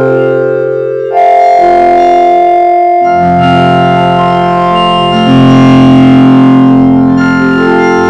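Loud sustained synthesizer-like chords from the 4ormulator vocoder effect, holding each chord and jumping to a new one about every two seconds.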